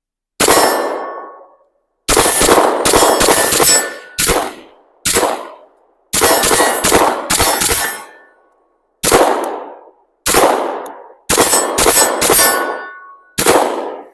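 CZ P-10 9mm pistol firing 124-grain ammunition, about fifteen loud shots. Some come in quick runs of three to five and others singly, each ringing out briefly after the report.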